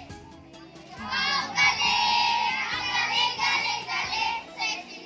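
A group of children singing together in unison, starting about a second in.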